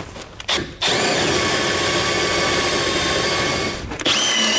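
Milwaukee M12 cordless drill boring a half-inch bit through a pre-drilled hole in a bumper beam to enlarge it: one steady run of about three seconds with a motor whine, then a shorter second burst near the end.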